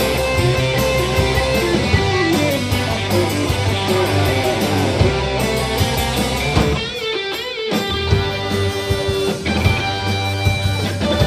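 Live rock band playing an instrumental passage: electric guitar notes over bass and drums with steady cymbal ticks. About seven seconds in, the bass and drums drop out for about a second while the guitar plays high wavering notes, then the full band comes back in.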